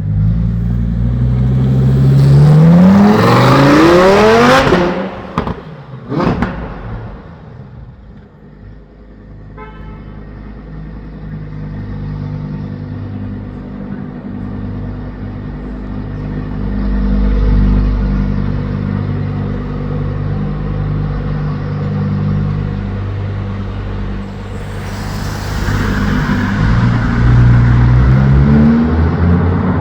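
Lamborghini Huracán Performante's V10 revving hard as it accelerates, its pitch rising steeply over the first few seconds, with another short sharp rev around six seconds. A short car horn toot comes near ten seconds, then a steadier engine drone before the engine revs up loudly again near the end.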